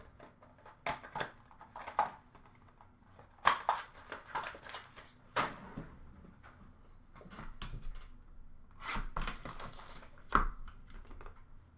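Trading-card boxes and packs being handled and set down: scattered knocks and taps, with a denser rustle of packaging about nine seconds in.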